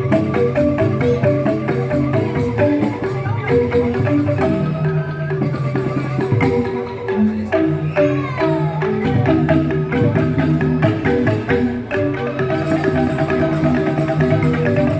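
Balinese joged bumbung gamelan: a bamboo xylophone ensemble (grantang) playing fast, interlocking melodic patterns of struck notes without a break.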